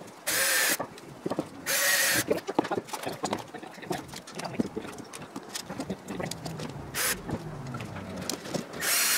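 Cordless drill run in short bursts, drilling through a small aluminum aircraft-kit part: two bursts of whine close together at the start, a brief one later and another near the end. Light clicks and knocks of the part and tools being handled in between.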